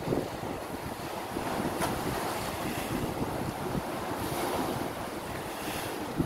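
Sea surf washing against a rocky shore, with wind buffeting the microphone.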